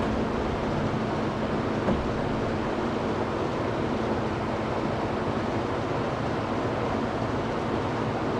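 A machine running steadily, a constant drone with a low hum, and one brief tick about two seconds in.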